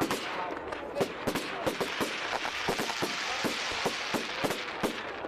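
Fireworks crackling: many sharp pops and cracks in quick, irregular succession over a steady hiss.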